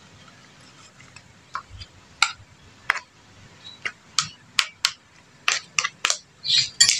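A metal spoon and a plastic ladle clinking and scraping against a stainless steel bowl as pieces of catfish are tossed with spices. Short clicks and knocks, a few at first and then several a second from about two seconds in.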